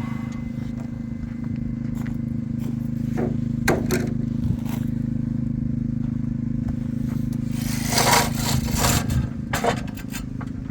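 A machine motor running at a steady pitch, with intermittent scraping and a few knocks over it.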